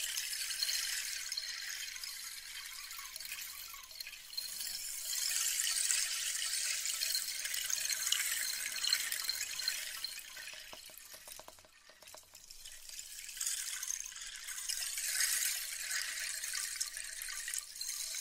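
Soft, fizzing, crackling hiss of an ASMR trigger at a 3Dio binaural microphone. It swells and fades in waves, thins out with a short run of clicks about eleven seconds in, then builds again.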